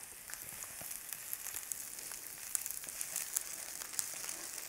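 Sliced onion sizzling in hot olive oil in a frying pan: a steady hiss with many small crackles.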